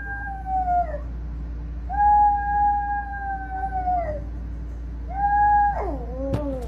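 A dog howling: three long, steady howls, the middle one the longest, each dropping in pitch at the end, over a low hum.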